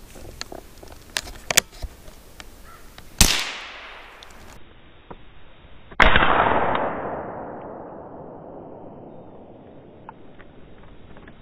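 Two gunshots about three seconds apart, each a sharp crack followed by a fading echo; the second is louder and its echo dies away over about three seconds. A few light clicks and snaps come in the first two seconds.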